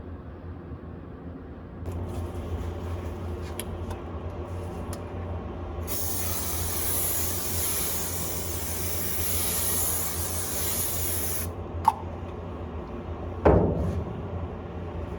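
A steady spraying hiss lasting about five seconds, over a low steady hum. A short click follows, then a loud thump near the end.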